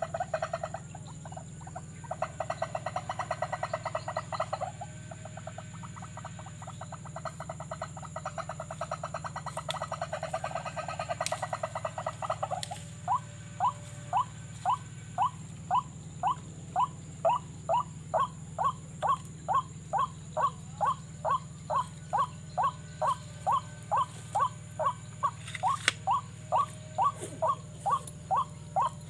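White-breasted waterhen calling: first a fast rattling trill, then from about halfway a long run of evenly spaced, rising 'kru-ak' notes, about two a second. This is the ruak-ruak call used to lure the birds to the snares.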